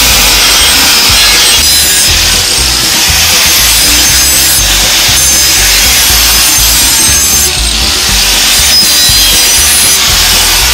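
Electric angle grinder with an abrasive disc grinding the flat of a steel cleaver blade, a steady hissing grind that shifts slightly as the disc moves across the blade, taking off rust and polishing the steel bright.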